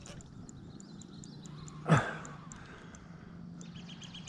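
A short, loud grunt-like exhalation about two seconds in, dropping quickly in pitch, from an angler straining while fighting a big bass. Faint bird chirps sound in the background.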